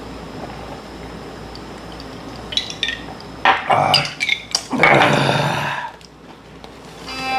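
Tableware clatter at a meal: beer glasses set down on the table and dishes and chopsticks clinking, a run of sharp knocks and clatters in the second half.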